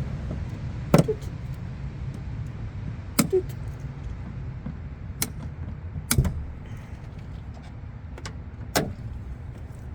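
About five sharp clicks and knocks, spaced one to two and a half seconds apart, over a low steady rumble.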